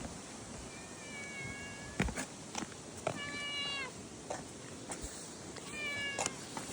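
A cat meowing three times, each call a steady, held tone lasting about a second, with a few sharp clicks in between.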